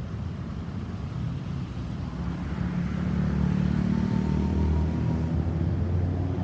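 Low engine rumble that grows louder around the middle and eases off near the end.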